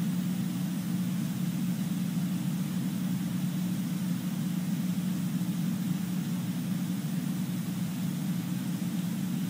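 Steady low hum of room tone with a faint hiss above it, unchanging throughout.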